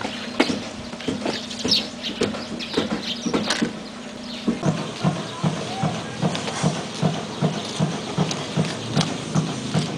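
Footsteps walking on gravelly, pebbly ground, at about three steps a second from about halfway through. Before that there are scattered light crunches and a few short chirps.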